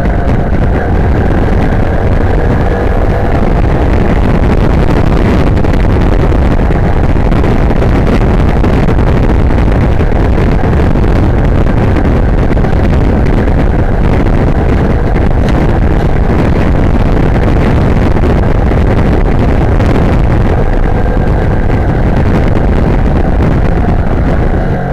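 Sym Wolf 150 motorcycle's single-cylinder engine running steadily under way, with heavy wind rush on the microphone largely covering the engine note.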